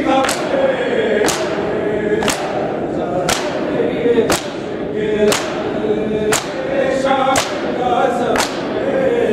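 Matam: a crowd of men striking their bare chests with open hands in unison, one loud slap about every second, over a group of voices chanting a noha (mourning lament) in time with the strikes.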